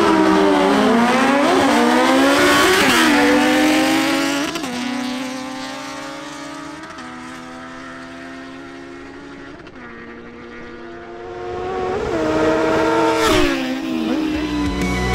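Two inline-four motorcycles, a Honda CB1000R and a Kawasaki Z900, launching hard off a drag-strip start line. Their engine notes climb and drop sharply with each quick upshift over the first four seconds or so, then fade to a distant drone as the bikes run down the quarter mile. Near the end the engines grow loud again and pass by, the pitch falling as they go.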